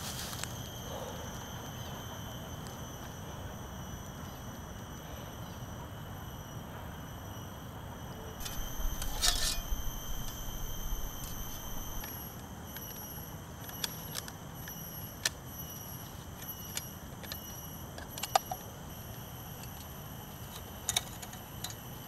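Light metallic clicks and clinks as a small folding wire frame is handled and unfolded, with a rustle about nine seconds in and a few sharp ticks scattered after it. A steady high insect drone runs underneath.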